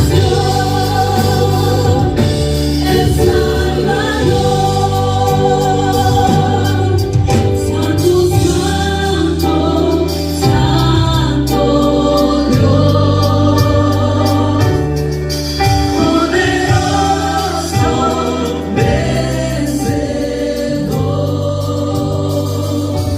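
Gospel-style Christian music: a choir of voices singing over sustained bass notes.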